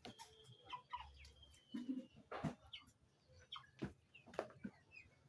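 Nine-week-old broiler chickens clucking faintly and now and then in short calls, with scattered short clicks.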